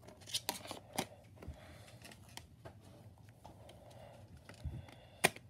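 Plastic DVD case and discs being handled: a run of small clicks and taps in the first second, then a few softer ones. Near the end there is a dull thump, then a single sharp click that is the loudest sound.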